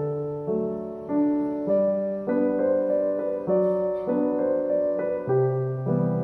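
Background piano music: soft chords struck about every half second, each one fading before the next.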